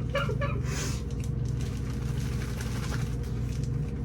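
A steady low mechanical hum, with a few faint short handling sounds in the first second.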